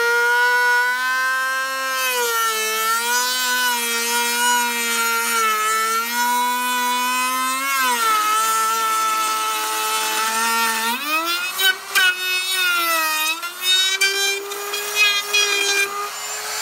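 Porter-Cable router's motor whining as its bit cuts a rabbet into the top inside edge of a spruce hive box, with a hiss of wood being cut over it. The pitch sags and wavers under the cut, drops sharply about halfway through, then climbs to a higher whine for the last third.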